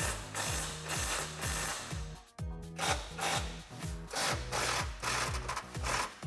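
Milwaukee Fuel cordless impact wrench hammering on an 18 mm deep socket, breaking loose a bumper-mounting nut on a Jeep Wrangler JK frame horn. It rattles in two long runs with a brief stop about two and a half seconds in, over background music with a steady beat.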